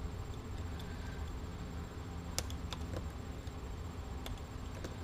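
A few small sharp clicks, the clearest about two and a half seconds in, as fingers press and flex a scored piece of fibreglass circuit board to snap it off, over a low steady hum.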